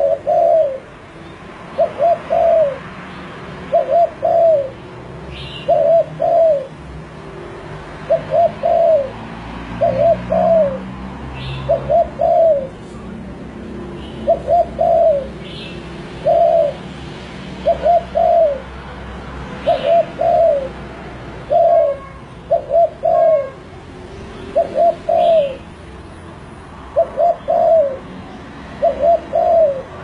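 Spotted dove (tekukur) cooing: short phrases of two or three low coo notes, repeated every one to three seconds.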